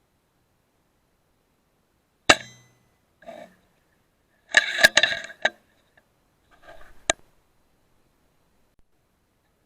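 An air rifle shot: one sharp crack about two seconds in, followed by several short bunches of clicks and clatter.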